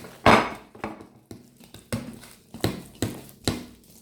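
Sticky homemade slime being kneaded and squeezed by hand, giving a string of short pops and clicks, the loudest about a quarter second in.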